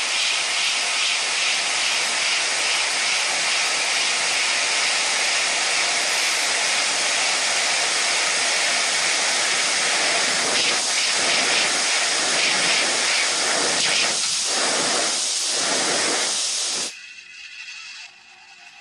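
Steady hiss of a jet of air blowing up to keep a marble floating. It cuts off sharply near the end.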